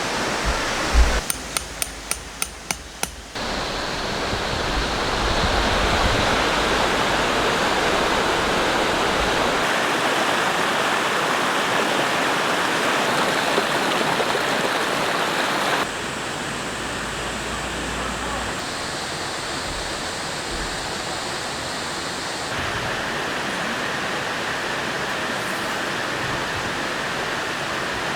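Rushing mountain stream, a steady loud wash of water that shifts in level at a few abrupt cuts. Near the start, a quick run of about eight sharp ticks sounds over it.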